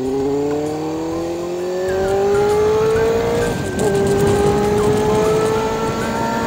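Honda CBR250RR (MC22) inline-four engine pulling hard, its pitch climbing steadily for about three and a half seconds, then dropping suddenly at an upshift and climbing slowly again in the next gear.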